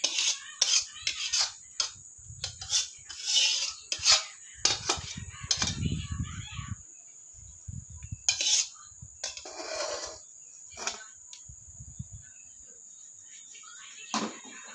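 A wok being scraped out and knocked with a cooking utensil, a quick run of scrapes and clatters over the first six seconds, a longer scrape a few seconds later and one last knock near the end.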